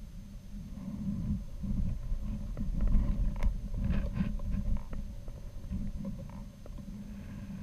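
Uneven low rumbling of air buffeting the microphone of a camera on a swaying balloon payload, with scattered light clicks and knocks from the rig.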